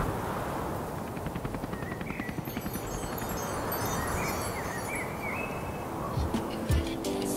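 Outdoor ambience: a steady rushing hiss with short bird chirps every second or so, and a fast rattling about two seconds in. A few deep thuds come near the end.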